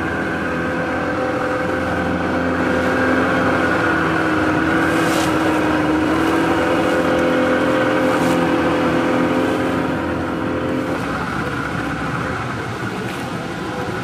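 Motorboat engine running at a steady pitch over a rushing noise, its note fading away about eleven seconds in.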